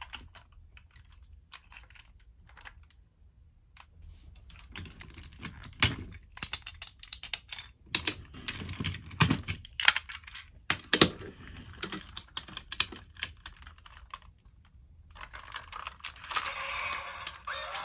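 Hard plastic parts of a DX sentai robot toy clicking and knocking as they are handled and snapped together. The clicks are sparse at first and come thick and fast from about five seconds in. Near the end a denser, steadier noise joins them.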